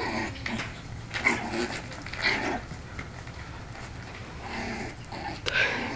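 Pomeranian making short playful growling sounds in several brief bursts as it plays with a small ball.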